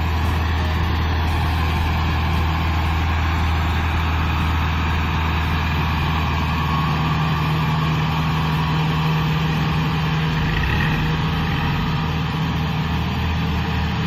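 Kubota DC-70 combine harvester's diesel engine running steadily under load as the tracked machine climbs out of the mud, a continuous low hum.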